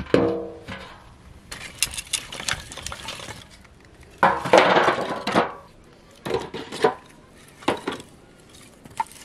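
A metal basin set down on the ground rings briefly, then split firewood sticks clatter against each other and the basin as they are dropped into it by the armful and stacked. The loudest clatter comes about four seconds in, with a few smaller knocks after it.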